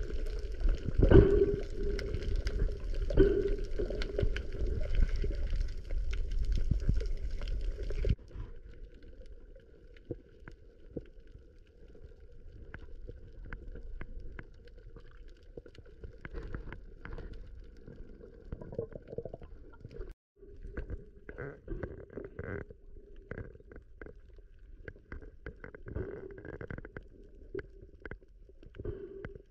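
Muffled water sloshing and gurgling with low rumbles and knocks for the first eight seconds, cutting off suddenly. After that come quieter water sounds with scattered sharp clicks and crackles.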